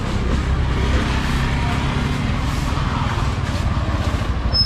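Street traffic: a motor vehicle's engine running close by as a low, steady rumble, with a brief high beep near the end.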